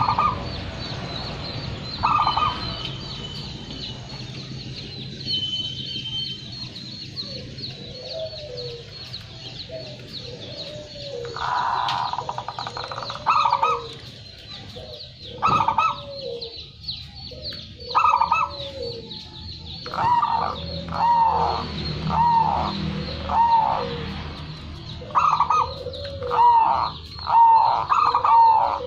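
Zebra dove (perkutut) cooing: a long series of short rising-and-falling coo notes, repeated about once a second, coming louder and closer together in the last ten seconds. A steady high chirping runs underneath.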